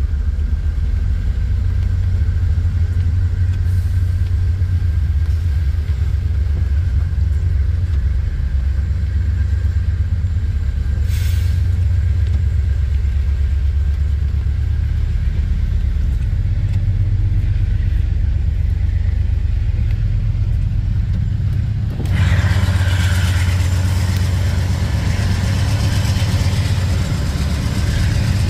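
Diesel locomotives and a freight train rolling past in heavy rain: a steady low rumble, muffled at first as heard from inside a car. About 22 seconds in the sound suddenly opens up, with a loud hiss of rain and train noise over the rumble.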